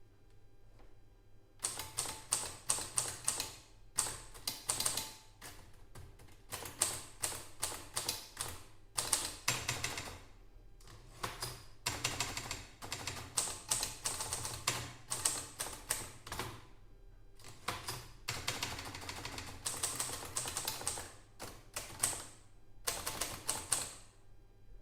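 Groma Kolibri portable typewriter being typed on: quick runs of sharp key strikes with short pauses between them, starting about two seconds in.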